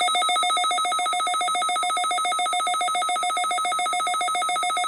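A NOAA weather radio receiver's alarm going off for the weekly test: a loud electronic tone at one steady pitch, pulsing rapidly like a ringing phone.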